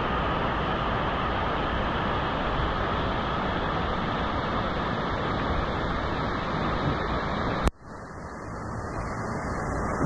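Rushing, choppy water of a fast-moving lazy river washing against a camera held right at the water's surface, a steady loud wash of noise. About three-quarters of the way through there is a sharp click and the sound drops suddenly, then swells back up.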